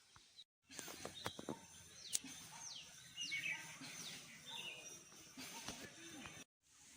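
Birds calling: a run of short, quickly falling chirps, with a few sharp clicks about a second in.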